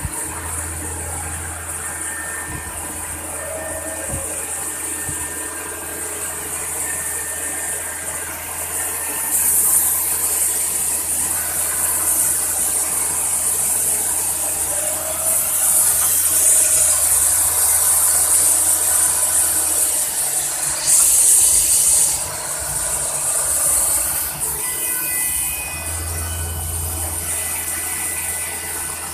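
CNC machine running: a steady low hum and machine whine, with a high hiss that grows louder from about ten seconds in and falls back near the end.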